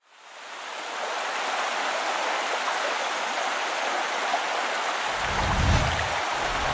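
Steady rushing-water noise that fades in over the first second. A low rumble joins about five seconds in.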